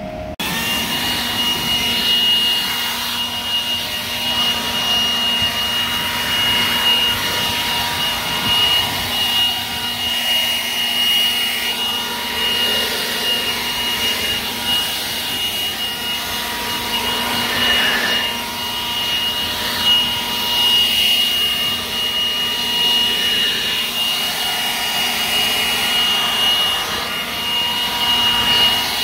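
Milwaukee M18 cordless battery leaf blower starts up and runs steadily: a rush of air with a high, steady whine from the electric fan.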